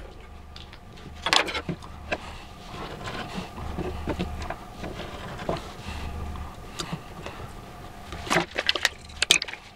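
Kitchen knife cutting and scraping a vanilla pod on a plastic cutting board: scattered small taps, clicks and knocks, a few louder near the end.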